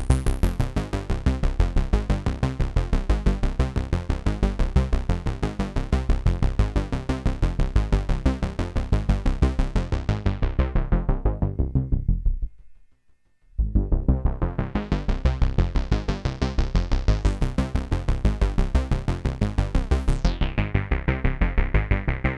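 Arturia MatrixBrute synthesizer playing a fast repeating sequence, about five notes a second, through an Erica Synths Black Polivoks eurorack filter. The filter is swept closed until the sound almost vanishes about twelve seconds in, then swept open again and closed down near the end.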